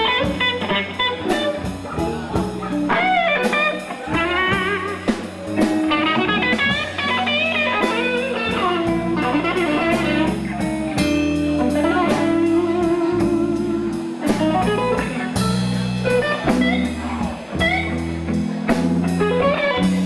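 Blues band playing: a guitar lead with bent, wavering notes over a steady bass line and a drum kit keeping time.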